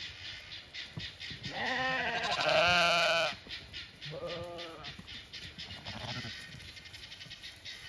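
Blackbelly hair sheep bleating: one long, wavering bleat about one and a half seconds in that grows louder before cutting off, then a shorter bleat about four seconds in and a fainter one just after six seconds.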